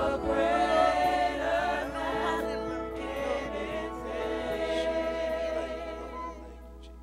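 A gospel worship song sung by many voices together, which dies away about six seconds in, leaving a steady electrical hum.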